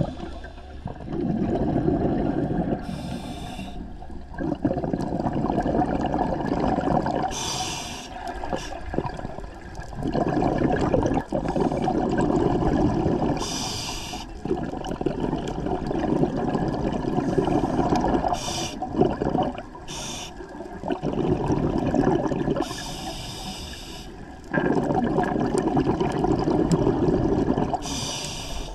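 Scuba diver breathing through a regulator underwater: a short hissing inhalation every four to five seconds, each followed by a longer rumbling rush of exhaled bubbles.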